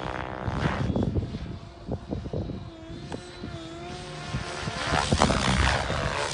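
Radio-controlled helicopter flying overhead, its rotor and motor tone wavering in pitch as it manoeuvres. The tone is faint in the middle and grows louder about five seconds in as the helicopter comes nearer. Wind buffets the microphone throughout.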